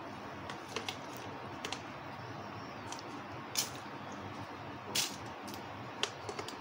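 Light clicks and taps of a metal spoon against a plastic spice jar while black pepper is spooned onto raw chicken, over a steady faint hiss; the two sharpest clicks come about three and a half and five seconds in.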